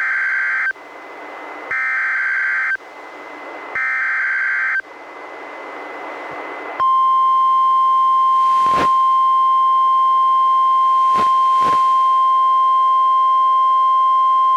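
NOAA Weather Radio emergency alert on a weather radio: the SAME digital header plays as three short bursts of warbling data tones, each about a second long. After about two seconds of radio hiss, the steady single-pitch warning alarm tone comes on and holds, broken by a few brief static crackles. Together they mark the start of a warning-level alert, here a Special Marine Warning.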